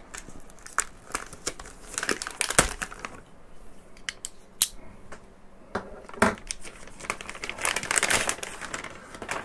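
Packaging being unwrapped by hand: crinkling and crumpling with scattered sharp clicks and knocks, the busiest stretch about eight seconds in.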